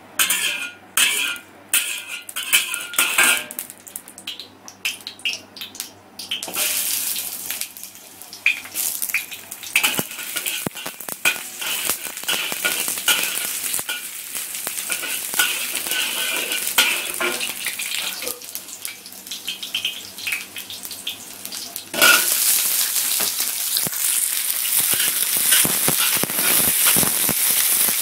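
Oil crackling and sizzling in a wok while ingredients are stir-fried with a metal spatula, with scraping and clinking against the pan. The first few seconds hold scattered sharp crackles. About 22 s in the sizzling jumps louder as onion pieces go into the hot oil.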